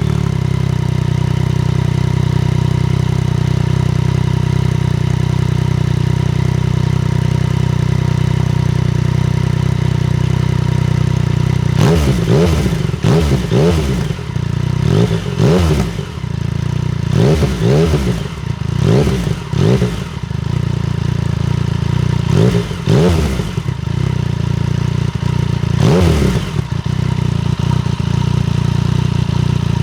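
Yamaha FZ-09's 847 cc inline-three engine with a Black Widow full exhaust, idling steadily, then revved in a string of quick throttle blips a little under halfway through before settling back to idle near the end.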